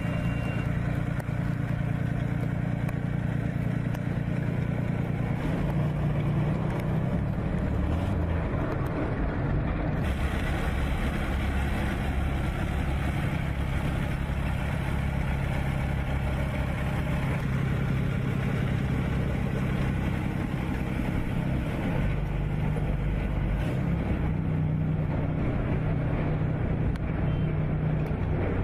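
Diesel engine of a tracked armoured vehicle running as it drives, a steady low drone that shifts in pitch a few times as the engine speed changes.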